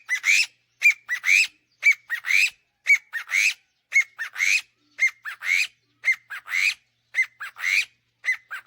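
A small gamebird calling loudly, a series of about nine two-note phrases, roughly one a second: a short clipped note, then a rising slurred one. The calls stop right at the end.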